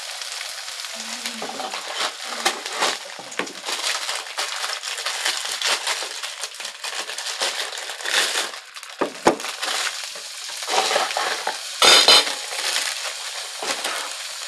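Clear plastic sheets crinkling and crackling as veggie burger patties are peeled apart by a gloved hand, over the steady sizzle of patties frying on a griddle. There is a louder crinkle near the end.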